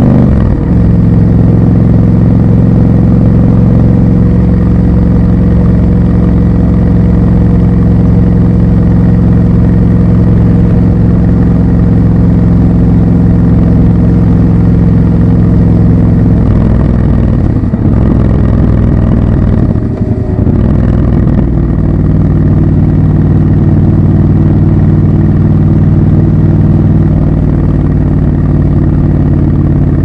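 Triumph Scrambler 1200 XC's 1200 cc parallel-twin engine running steadily at cruising speed under way. A little past the middle its note wavers and dips for a few seconds, then settles steady at a slightly lower pitch.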